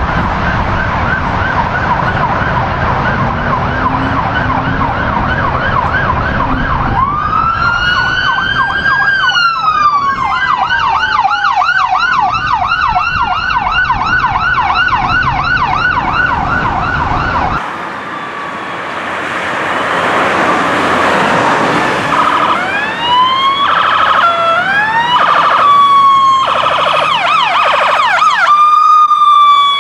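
Emergency vehicle sirens. A fast yelp gives way to a long rising and falling wail about seven seconds in, then yelps again. After a cut at about 18 seconds, a fire department ambulance's siren cycles through short yelps and sweeps and ends on a falling wail.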